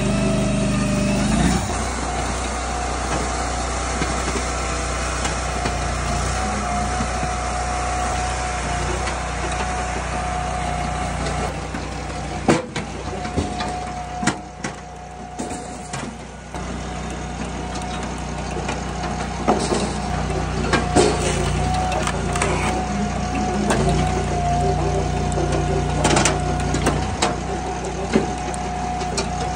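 Firewood processor's engine and hydraulics running steadily, with a constant whine. Knocks and clatter of split wood come now and then, most plainly near the middle and later on.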